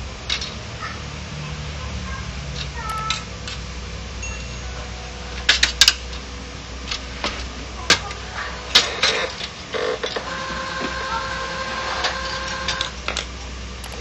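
Irregular clicks and knocks of the plastic and sheet-metal parts of an HP LaserJet 1010 printer being handled and pulled apart by hand, louder clacks near the middle.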